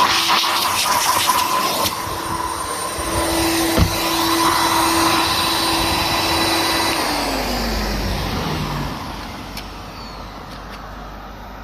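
Kerstar KV25-2 twin-motor vacuum cleaner running steadily with a high whine, then switched off about seven seconds in, its motors winding down in a falling whine. A single knock sounds about four seconds in.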